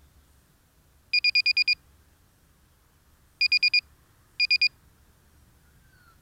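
Electronic beeper sounding a high, steady-pitched beep in quick runs: about seven rapid beeps, then four, then three. The lost-model alarm of a downed FPV aircraft, sounding so that it can be found.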